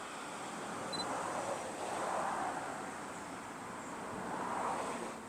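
Outdoor background noise, a hiss that swells and fades three times, with no distinct event.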